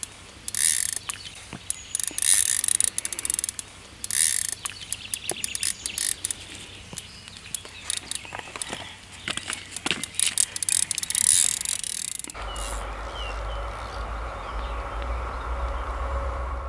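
Spinning reel on a carp rod clicking and whirring in short runs as it is worked and cast. About twelve seconds in this gives way to a steady low rumble with a few bird chirps.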